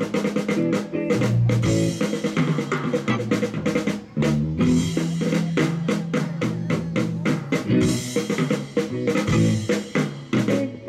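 Live rock band playing an instrumental passage: drum kit keeping a steady beat of snare and bass drum, with electric guitars and bass guitar.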